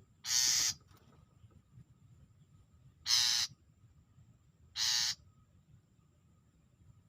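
Long-tailed shrike giving three harsh, rasping calls, each about half a second long, the second coming about three seconds after the first and the third a second and a half later.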